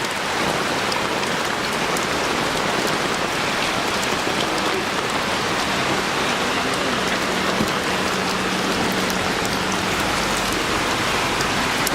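Floodwater rushing down a city street like a river: a steady, even hiss of moving water.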